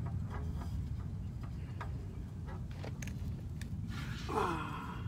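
Light scattered clicks and taps of hands working a new oil filter up against the engine's filter mount, over a steady low rumble, with a brief falling squeak a little over four seconds in. The filter will not go on, and the owner suspects he bought the wrong one.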